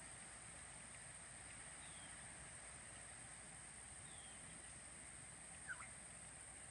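Faint outdoor ambience: a steady high hiss with a few short, falling bird chirps, the clearest one near the end.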